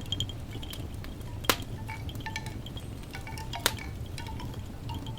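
Wind chimes tinkling with scattered short ringing notes over a steady low rumble. Two sharp pops from the fire pit come about a second and a half and three and a half seconds in.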